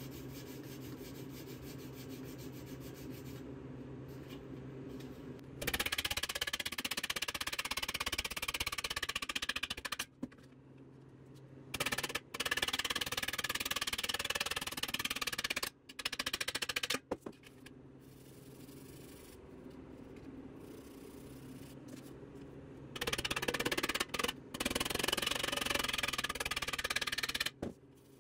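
Scotch-Brite abrasive pad scrubbed hard against a chromed Rostyle wheel cover, in several bursts of a few seconds each. A steady low hum fills the pauses between them.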